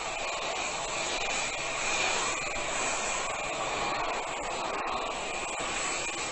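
A steady, even rushing hiss like blowing air, with no clear pitch or rhythm.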